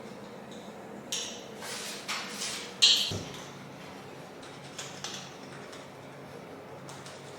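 A scraper rasping against hard painted surfaces, scraping off old paint drips in a few short strokes. The sharpest, loudest stroke comes about three seconds in and a couple of fainter ones follow near five seconds, over a steady low hum.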